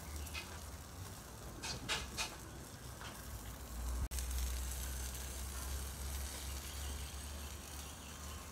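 Seasoned jerk chicken sizzling on the wire grate of an oil-drum grill over a wood and coal fire. A few sharp crackles come about two seconds in, over a steady low rumble.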